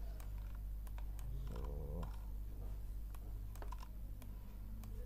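A handful of sharp, irregularly spaced clicks from a computer keyboard and mouse, over a steady low electrical hum.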